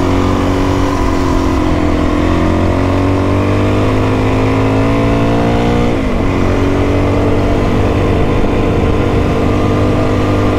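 Suzuki DR-Z400E's single-cylinder four-stroke engine running hard under load on a dirt track. Its note climbs slowly, drops sharply about six seconds in as with a gear change, then climbs again.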